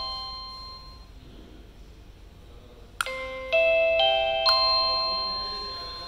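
Un1que wireless doorbell's chime unit playing a rising four-note electronic ding-dong tune, twice. The first tune is dying away at the start; a sharp click about three seconds in, then the same rising notes ring again and fade.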